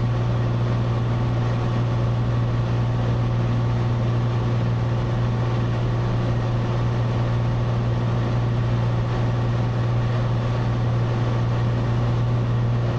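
Cessna 182's piston engine and propeller droning steadily in level cruise, heard from inside the cabin.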